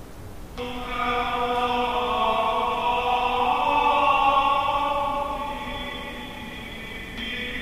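Church music of long held chords, starting suddenly about half a second in, swelling to its loudest near the middle and shifting chord a couple of times.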